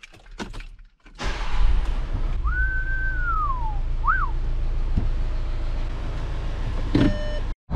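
A person whistles a short phrase, one long note that rises, holds and falls, then a quick up-and-down note, over a steady low rumble in a car cabin that starts suddenly about a second in. A short chime sounds near the end.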